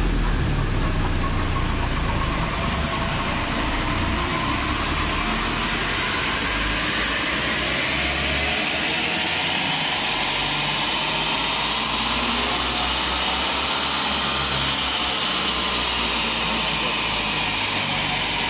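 Toyota Hilux 3.0 D-4D four-cylinder turbodiesel running on a chassis dynamometer in diesel-CNG dual-fuel mode, revving up from low revs to about 3000 rpm and held there. A whine rises in pitch over several seconds and then holds steady.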